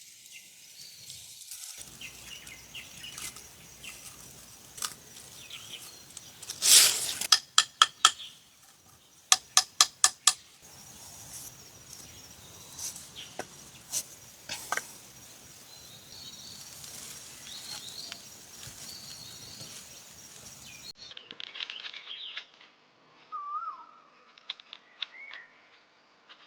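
Two quick runs of sharp knocks, four and then five at about five a second, like hammer blows on metal, over birds chirping outdoors.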